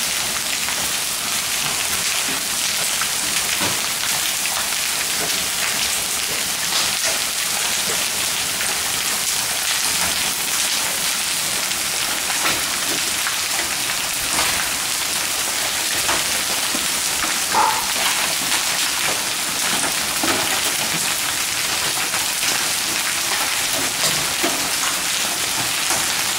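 Hailstones pelting down in a hailstorm: a steady, dense patter of countless small impacts, with now and then a single louder tick.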